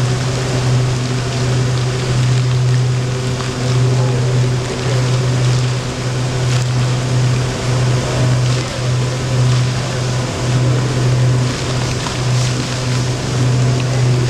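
Fountain jets splashing steadily into a shallow water basin, over a loud low hum that swells and dips about once a second.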